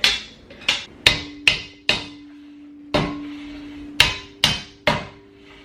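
Hammer knocking a chair part into place during assembly: about nine sharp blows in uneven groups, with a low steady ring lingering between them.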